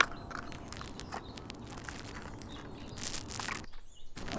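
Faint handling noises of a carp rig's hook link and shrink tube worked between the fingers: a few small clicks and a brief rustle about three seconds in, over quiet outdoor background noise that drops away near the end.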